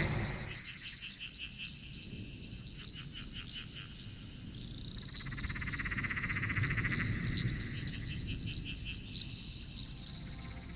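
Nature ambience of frogs and insects calling: pulsed trills over a steady high chirping drone, with a denser buzzing stretch from about five to seven seconds in. A loud rushing sound fades away in the first half second.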